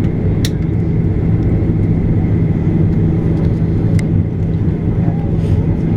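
Steady low rumble of an airliner's cabin in flight, engine and airflow noise, with two faint clicks about half a second and four seconds in.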